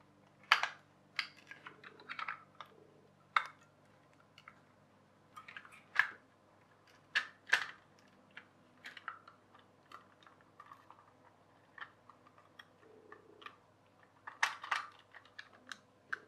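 Clear plastic toy gearbox parts and plastic gears clicking and tapping against each other as they are handled and fitted together by hand, in irregular sharp clicks with a few louder knocks.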